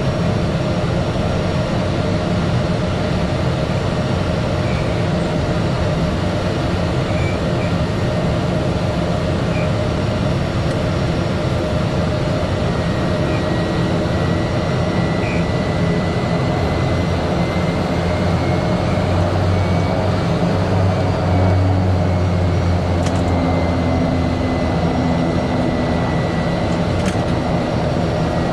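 Cessna 208 Caravan's PT6A turboprop engine and propeller running steadily at low taxi power, heard from inside the cockpit. A faint high whine comes in about halfway through, and a deeper hum swells for a few seconds past the middle.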